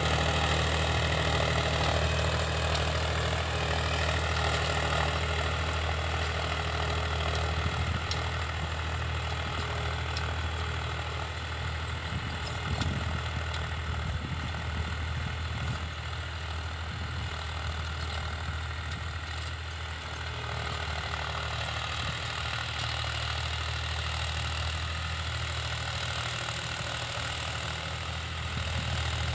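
Powertrac Euro 50 tractor's three-cylinder diesel engine running steadily under load as it pulls a tine cultivator through the soil. The engine is loudest at first, grows fainter through the middle and swells again near the end as the tractor moves away and comes back.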